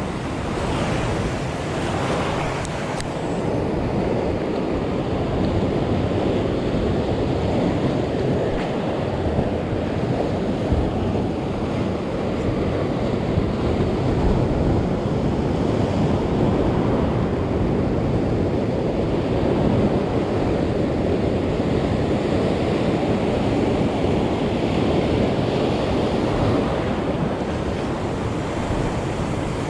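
Steady surf washing on the shore, with wind blowing across the microphone.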